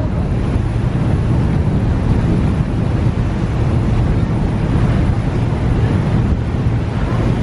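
Wind buffeting the microphone over the steady rush of water along the hull of a motor ferry underway, with a constant low rumble beneath.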